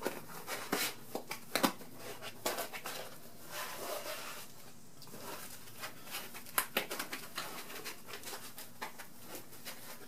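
A slit foam pool noodle being worked around the rim of a glass microwave tray by hand: soft rubbing and rustling with scattered light clicks and taps, a few of them sharper, about a second and a half in and again past six seconds.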